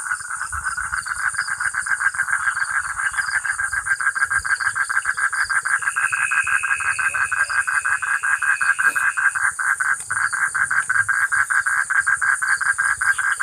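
Night chorus of frogs and insects: a frog calls in a fast, even pulsed trill without a break, over a steady high insect buzz. A higher steady note joins for a few seconds in the middle.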